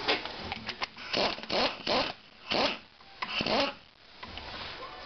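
Steel hooks of a screw-type spring compressor scraping and clinking against a strut's coil spring as they are fitted onto the coils, a series of short scrapes.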